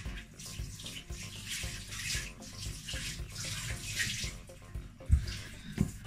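A wet cloth wiped back and forth over a ceramic glass hob, making a run of wet swishing strokes. Two short knocks come about five and six seconds in.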